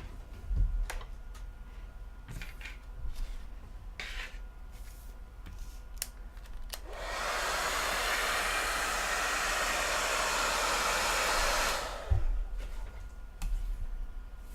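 Heat gun blowing a steady rush of hot air for about five seconds, starting about halfway in and cutting off suddenly, heating the phone's front to separate the digitizer from the frame. Light clicks and handling sounds come before it.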